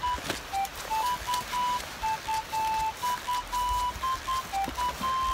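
Background music: a simple electronic melody of short, pure, beeping notes stepping between a few pitches, with a few faint clicks beneath it.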